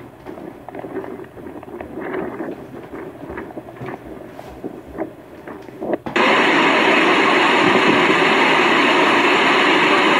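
Loud, steady rushing of storm wind and driving rain on the phone's microphone, cutting in suddenly about six seconds in. Before it, fainter uneven noise with scattered short knocks.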